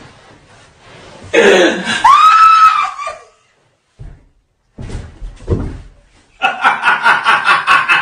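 A loud yell with a pitch that rises and falls, about a second and a half in, then after a brief silence a burst of loud, pulsing laughter near the end.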